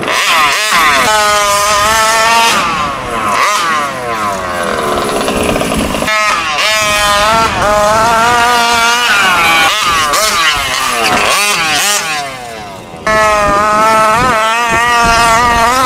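Fifth-scale gas RC truck's Taylor 46 GT two-stroke engine revving up and falling back over and over as the truck is driven hard. The level dips briefly about twelve seconds in, then the engine is loud again.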